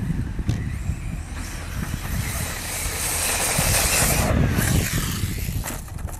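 Kyosho Inferno RC buggy with a TP-Power 4050 2200kv brushless motor on 6S, running flat out on paddle tires through sand. A loud hiss of motor and sand spray builds from about a second and a half in, peaks near four seconds and then drops away suddenly, over a steady low rumble.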